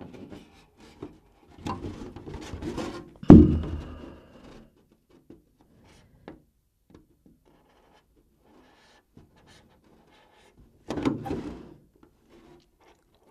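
Clear polycarbonate RC truck body being handled and bent while its trim line is scored with a hobby knife: rustling, rubbing plastic noise with a sharp thump about three seconds in. Faint scattered ticks follow, then another short burst of handling noise near the end.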